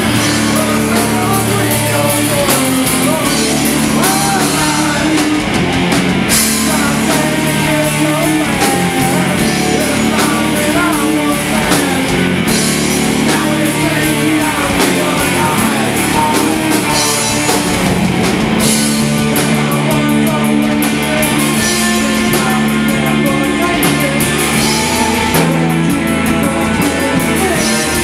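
Loud live stoner rock: electric guitars and a drum kit with cymbals, and a singer's vocals over them.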